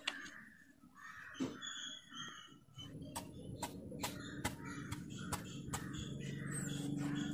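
Steel knife cutting through the skin of a raw green mango, with sharp clicks about twice a second from about three seconds in. Birds call in the background, and a low steady hum sits under the clicks.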